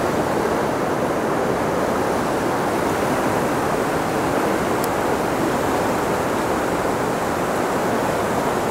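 Whitewater rapids of a fast river rushing steadily.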